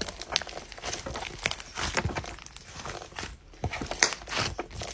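Butter slime being kneaded and stretched by hand, making irregular sticky clicks and crackles as it is pulled and squeezed.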